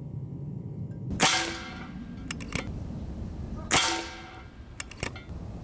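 Two shots from a .25-calibre AEA HP Varmint PCP air rifle, about two and a half seconds apart. Each is a sharp crack with a short ringing tail, and there are a few light clicks between and after the shots.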